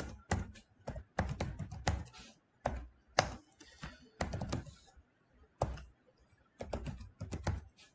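Typing on a computer keyboard: uneven runs of quick key clicks, with a pause of nearly a second about halfway through.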